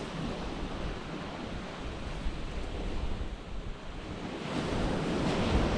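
Small waves breaking on a shingle beach: a steady wash of surf that swells as a bigger wave breaks near the end. Wind on the microphone underneath.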